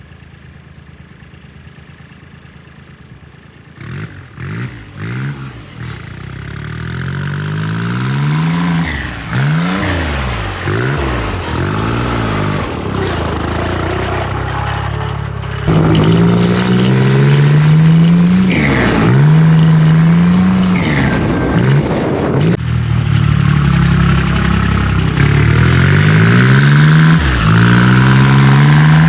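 Turbocharged garden tractor engine idling steadily, then blipped and revved up and down over and over, its pitch rising and falling with each rev, with turbo flutter as the throttle closes. It gets louder about halfway through.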